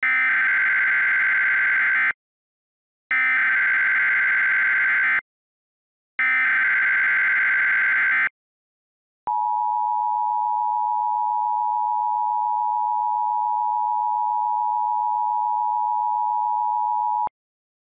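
Emergency Alert System SAME header: three identical bursts of buzzy digital data tones, each about two seconds long with short gaps between them. About nine seconds in, the two-tone EAS attention signal begins, a steady electronic drone held for about eight seconds, announcing the alert message that follows.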